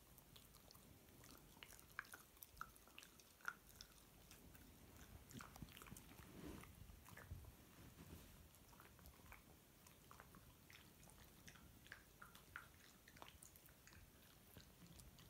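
A small dog chewing crunchy food: faint, irregular crunches and clicks.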